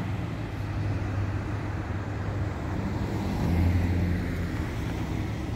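Road traffic: a steady low hum of car engines, growing a little louder for about a second partway through.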